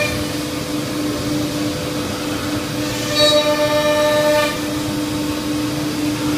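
C.R. Onsrud Panel Pro CNC router running with a steady whine. About three seconds in, a louder whine with several overtones comes in for about a second and a half.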